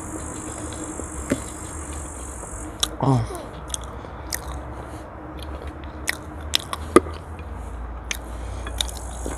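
Close-up eating sounds: chewing and biting, with scattered sharp clicks of a fork on the plate and mouth smacks, and a brief falling hum of the voice about three seconds in. A steady high insect buzz sits behind it, drops out after about three seconds and comes back near the end.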